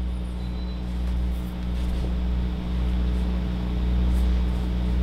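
Steady low machine hum, with a few faint, light clicks.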